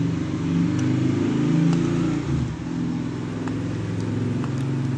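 A low engine drone whose pitch wavers and dips briefly about two seconds in before picking up again, with a few faint clicks of a plastic waterproof camera housing being handled.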